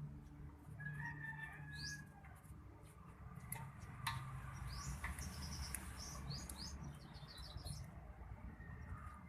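Small birds chirping faintly in short, quick notes, with a rapid run of chirps in the middle, over a low hum and a few sharp clicks.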